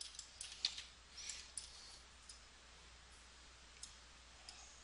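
Faint, scattered clicks of a computer mouse, a handful in the first two seconds and a few isolated ones later, over a low steady room hum.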